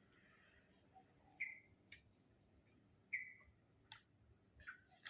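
Near silence, with two faint short chirps about a second and a half apart and a few faint ticks.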